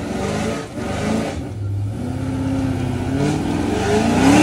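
Pontiac G8 sedan's engine revving hard during a burnout. The pitch swings up and down and climbs to its loudest near the end, over the hiss of spinning tyres.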